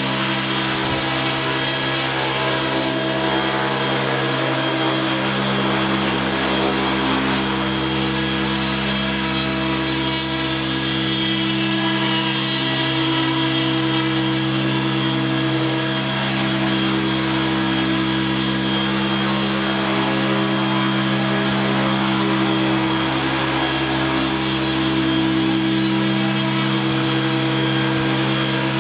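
Electric radio-controlled helicopter, an Avant Aurora 90E, running with its main rotor spinning at a steady speed: a continuous motor-and-gear whine mixed with the whirr of the rotor blades.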